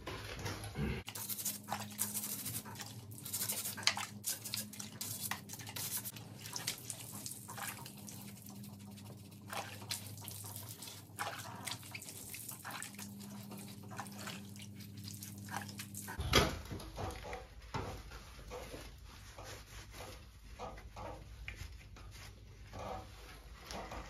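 Stiff plastic brush scrubbing wet dirt off a motorcycle's rear brake caliper and wheel, in quick irregular scratchy strokes with a sharper knock about two thirds of the way in.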